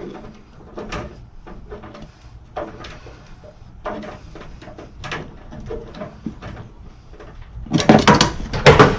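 Light knocks and clicks of tools and tubing being handled. Near the end a tool falls and clatters loudly, several sharp impacts in quick succession.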